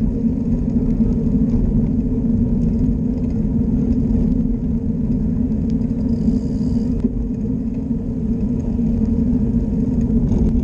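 Steady low rumble of riding along a paved path, tyre and wind noise picked up by a handlebar-mounted camera, with a constant low hum under it. A brief higher hiss about six seconds in.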